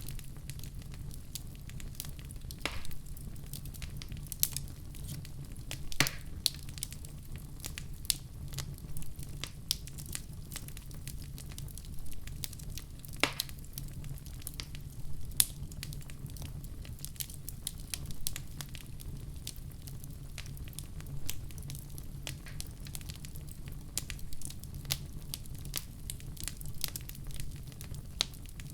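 Wood fire burning in a fireplace: a steady low rumble with frequent irregular crackles and sharp pops, a few of them louder.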